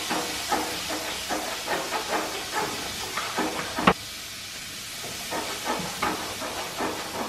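Shrimp and sliced vegetables sizzling as they sear in a hot frying pan: a steady hiss with small crackles. A single sharp knock about four seconds in.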